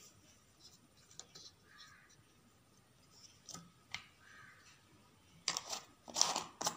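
Plastic screw lid being twisted onto a small plastic jar: a single click about four seconds in, then a quick run of scraping, clicking rasps near the end.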